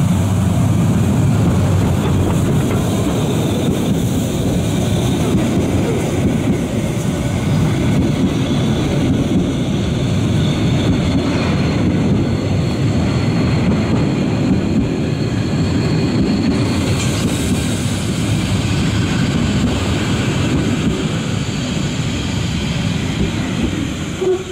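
A steam passenger train rolling slowly past at close range: an HSB 2-10-2 steam tank locomotive followed by its coaches, wheels running over the rails in a steady rumble that eases off near the end as the train moves away.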